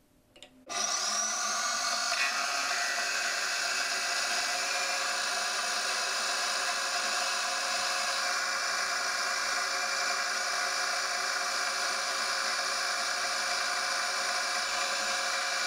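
A CQ9332A bench lathe switched on with a click, then running at a steady speed with an even whir and whine.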